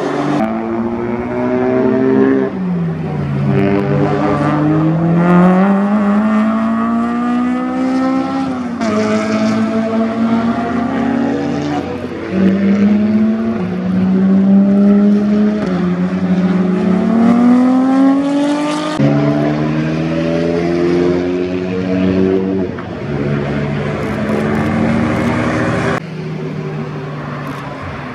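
Track cars at a chicane, one after another. Each one's engine note drops as it brakes and downshifts in, then climbs in steps through the upshifts as it accelerates out. The sound changes abruptly from one car to the next several times.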